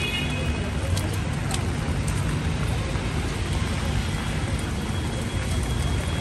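Steady city street noise in the rain: a low traffic rumble with the hiss of rain on wet roads and pavement.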